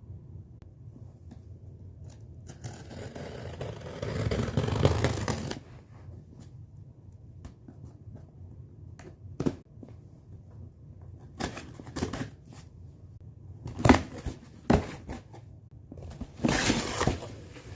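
Packaging being opened: a few seconds of tearing or cutting, then short knocks, clicks and rustles as the box and its contents are handled, with another brief rustle near the end.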